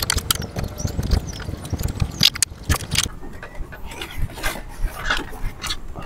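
Rope and mesh keep net being handled against a boat's rail: irregular clicking, rattling and rustling as the net's tie is worked loose and the net is pulled up.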